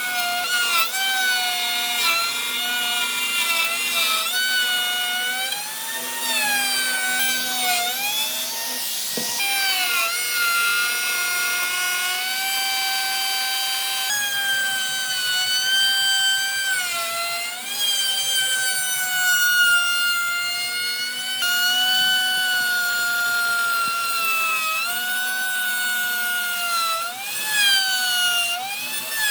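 A high-speed power tool's motor whining as it cuts or grinds into wood. Its pitch dips and recovers every few seconds as the tool is pressed in and eased off.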